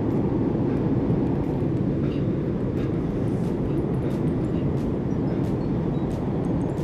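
Spinning reel being cranked steadily to retrieve a lure, heard as a dense, steady low rumble with a few faint high ticks.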